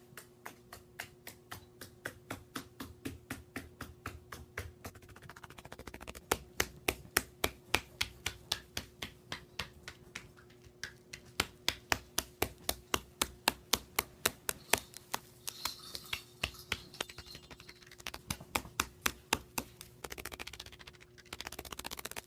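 A long run of sharp clicks or taps, about three to four a second, some louder than others, over a faint steady hum that stops near the end.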